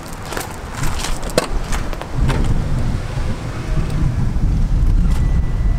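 Footsteps crunching on gravel. From about two seconds in, a low, uneven rumble grows louder beneath them.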